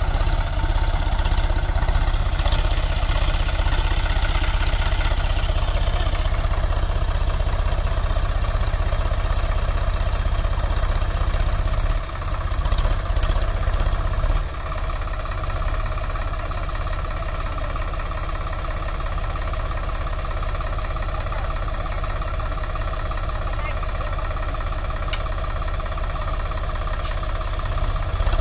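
Sonalika tractor's diesel engine running hard, straining to pull a loaded trolley out of soft sand in which its rear wheels are stuck. About twelve seconds in the engine note dips and wavers for a couple of seconds, then settles into steadier, slightly quieter running.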